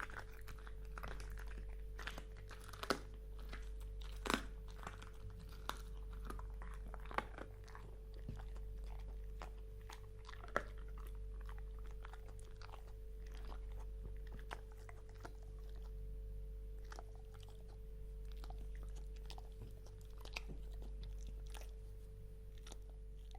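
Dog chewing on bones: irregular crunching and sharp cracks of bone between its teeth, the loudest cracks about 3, 4 and 10 seconds in, over a steady low hum.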